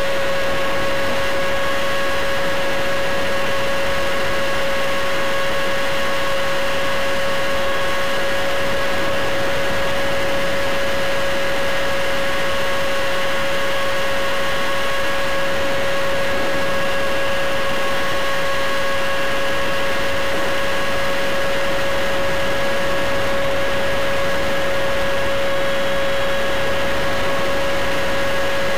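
Electric ducted-fan motor of a foam RC F-15 jet, heard through a camera on the airframe, whining at a steady pitch, with a hiss of airflow underneath.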